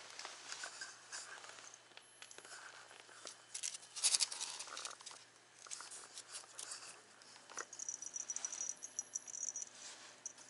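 A cat biting and pawing at a piece of styrofoam on concrete: uneven scratchy rustles and clicks, loudest about four seconds in. A high steady tone sounds for about two seconds near the end.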